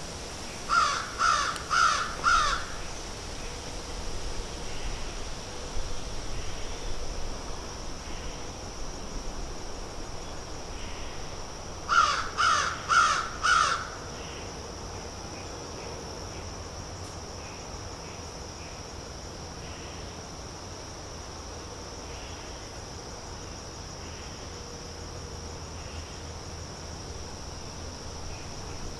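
Outdoor birds ambience: a bird gives a run of four harsh calls about a second in and another run of four about twelve seconds in. Between and under them a steady high-pitched drone and faint distant calls carry on.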